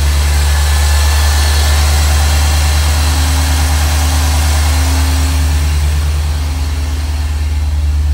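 1985 Corvette's 5.7-litre tuned-port-injected V8 with a Billy Boat exhaust, idling steadily just after a cold start.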